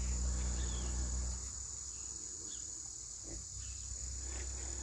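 Crickets or similar insects trilling steadily in a high, continuous tone, under a low hum that stops about a second and a half in.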